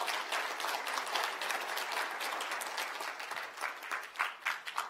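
Audience applauding, a dense patter of many hands clapping that thins to scattered single claps near the end.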